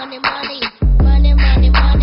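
Background music with a steady beat of sharp hits, about two to three a second; a heavy bass line comes in a little under a second in and the music gets much louder.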